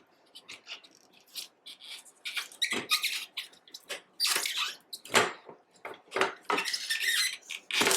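Irregular clicks, knocks and scrapes of bicycle parts and tools being handled, with several louder bursts in the second half.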